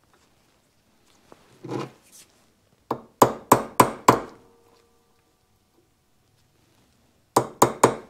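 Ball-peen hammer striking a steel punch held on the copper contact disc of a Suzuki Samurai ignition switch, on a steel block. There is a duller knock just under two seconds in, then five sharp metallic strikes about three a second, then three more near the end, each with a brief ring. The punching pushes copper forward from the back to fill the divot that arcing eroded in the contact.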